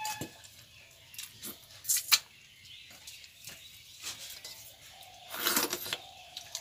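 Eating by hand from steel bowls: scattered light clicks and clinks of fingers and metal bowls, one sharper clink about two seconds in, and a longer noisy scrape about five and a half seconds in.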